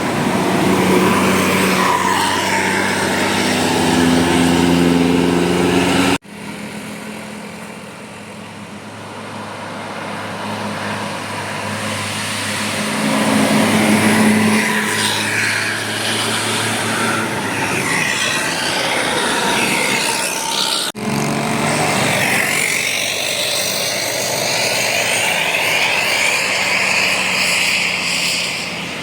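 Tour buses' diesel engines running hard as they climb and pass, in three spliced clips.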